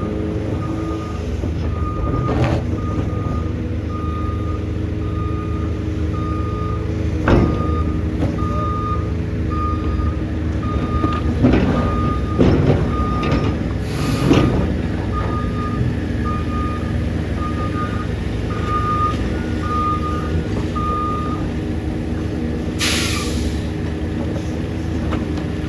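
A heavy tipper truck's reversing alarm beeps evenly over its diesel engine running steadily, and stops about three-quarters of the way through. A few sharp knocks sound along the way, and near the end comes a short, loud air-brake hiss.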